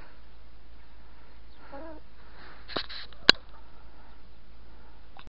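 Domestic hens in a hen house making a few soft, short calls. A single sharp knock comes a little past the middle.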